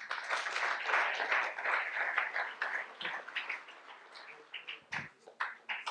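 Audience applauding: dense clapping for about three seconds, then thinning to scattered claps and dying away.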